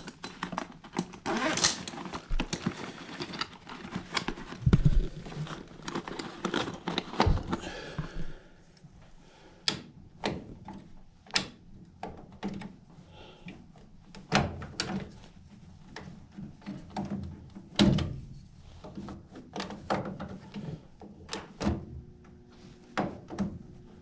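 Handling noise: scattered clicks, knocks and rattles, busy for the first several seconds and then sparser. A faint steady hum comes in near the end.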